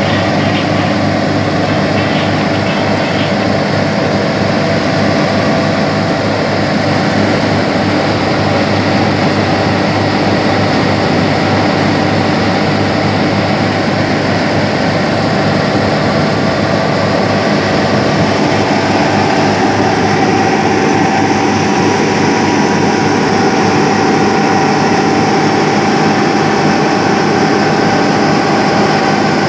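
Tractor engine running steadily at a constant speed, a continuous hum made of several even tones; a mid-pitched tone grows a little stronger about two-thirds of the way through.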